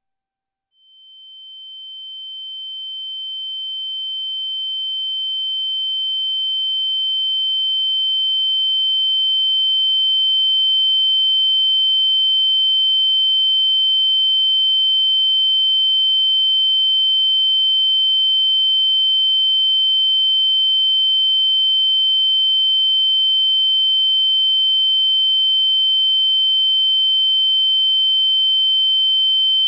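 Electronic high-pitched beep: a single pure, steady tone. It fades in about a second in, grows louder over the next ten seconds or so, then holds at a constant level.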